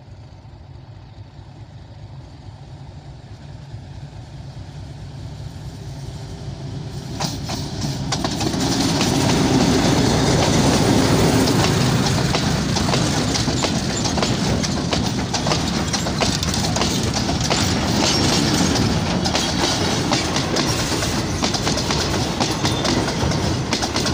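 Diesel-hauled freight train approaching, getting steadily louder over the first eight seconds or so. Its wagons then roll past close by with a continuous clickety-clack of wheels over the rail joints.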